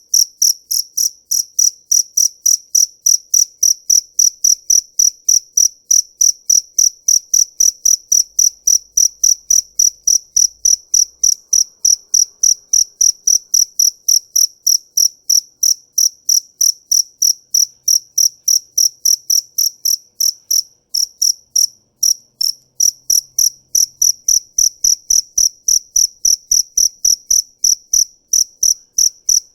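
Cricket chirping: a steady run of short, high-pitched chirps at about three a second, evenly spaced.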